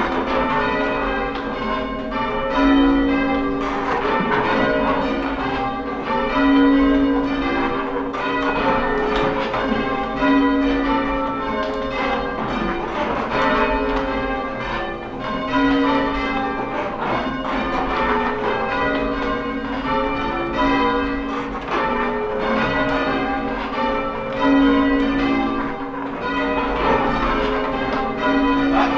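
Church bells being rung in changes (English full-circle change ringing): a steady stream of overlapping bell strikes. The low bell comes round about every four seconds.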